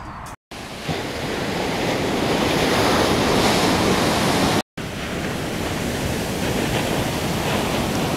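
Ocean surf breaking and washing up on a sandy beach, a steady rushing with wind on the microphone. The sound cuts out briefly twice, about half a second in and near the middle.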